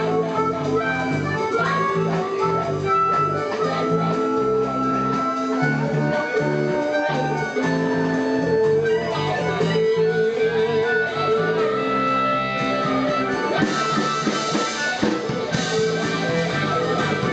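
Blues band playing an instrumental passage: a guitar leads with held notes over a bass line that steps along steadily.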